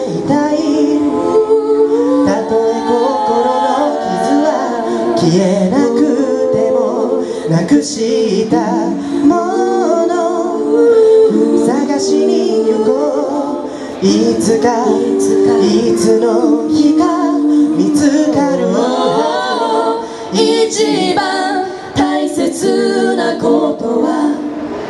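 Four-part a cappella vocal harmony, female and male voices singing chords without vocal percussion or a bass line, amplified through a PA.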